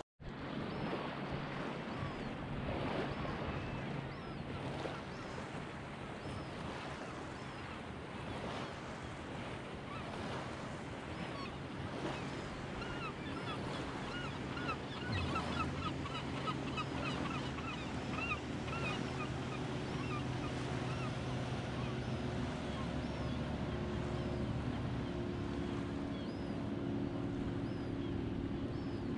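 Wind and small waves lapping on a shallow flat, with a distant motorboat engine droning more strongly in the second half. Birds call in short repeated notes for several seconds around the middle.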